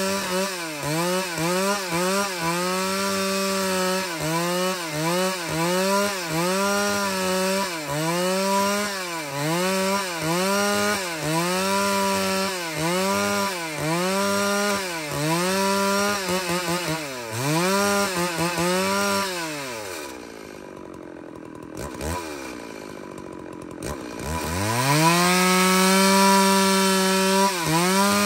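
Stihl MS 381 two-stroke chainsaw cutting angico preto hardwood into boards. The engine pitch dips and recovers about once a second as the chain loads up in the cut. About twenty seconds in it drops to idle for a few seconds with one quick blip, then revs back up to a steady full speed.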